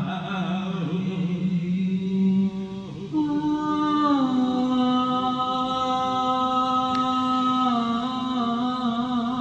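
Slow chanting with long held notes: one low note for the first two or three seconds, then after a brief break a higher note that glides down a little about four seconds in and is held.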